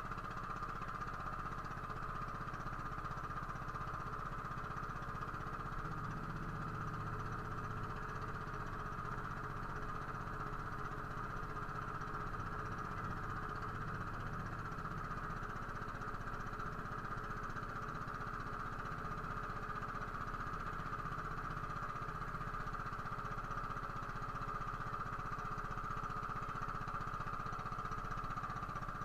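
Small boat engine running steadily with a rapid knocking beat under a constant drone.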